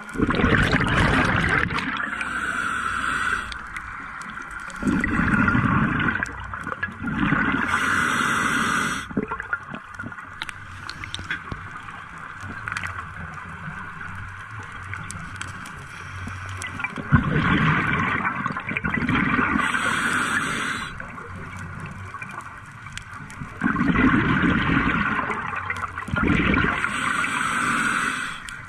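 Scuba diver breathing through a regulator underwater: a hissing inhale and a gurgling rush of exhaled bubbles, in several slow breaths with quiet pauses between.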